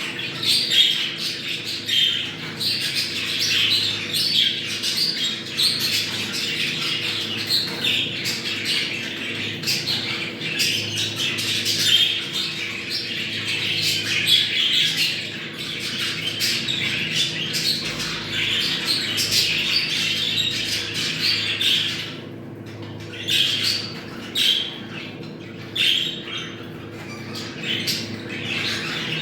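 Budgerigars chattering, warbling and squawking without pause: the breeding chatter of budgies in mating condition. About three quarters of the way through the chatter thins out into separate calls. A faint steady hum lies underneath.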